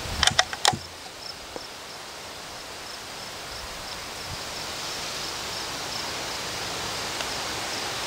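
Insects chirping steadily, a high chirp repeating a couple of times a second over a soft hiss. In the first second there are a few sharp metallic clicks as the TOZ-16 .22 rifle's bolt is worked.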